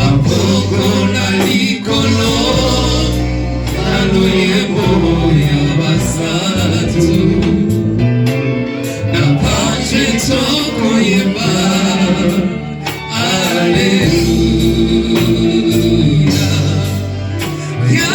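Gospel music with singing over a band with bass, guitar and a steady beat.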